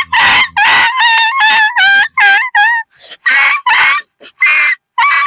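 A boy's voice imitating a dog yelping after being struck: a rapid string of short, high-pitched yelps, about three a second, some dropping in pitch at the end.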